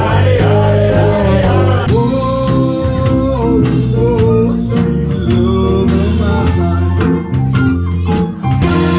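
Live band music: a drum kit and bass guitar keep a steady beat under held lead melody notes and singing.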